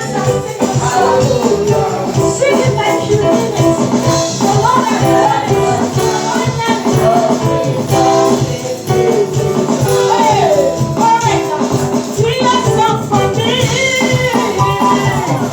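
Church praise and worship music: a band playing with a steady beat while singers sing a melody, with a shaker or tambourine rattling along.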